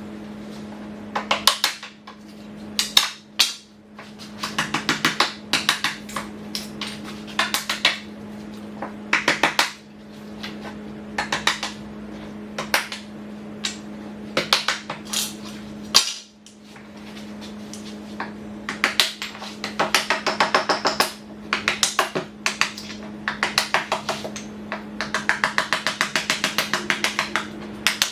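Repeated bursts of rapid clicking or tapping, each lasting a second or two, over a steady low hum.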